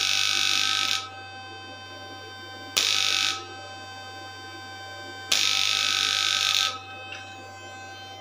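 Homemade 3000-watt fish-shocker inverter firing in three bursts, each a loud harsh buzz that starts and cuts off suddenly, roughly a second, half a second and a second and a half long. Between the bursts a steady electrical hum and whine.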